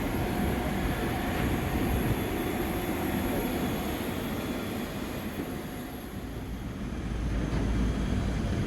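Steady cabin rumble inside an Airbus A320, with a faint high whine. The low rumble dips briefly and then swells again near the end.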